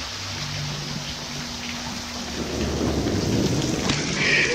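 Steady rush of splashing water, growing louder about two and a half seconds in.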